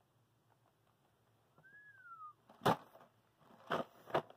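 Packaging being handled: three sharp clicks or taps about two and a half to four seconds in, as the cardboard box of fruit snacks is put down and worked open. They are preceded by a faint, short tone that rises and then falls.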